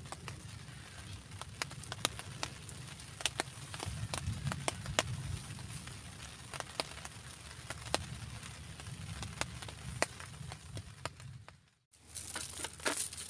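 Rain falling at a forest camp: irregular sharp taps of drops, several a second, over a steady low rumble. The sound drops out briefly near the end.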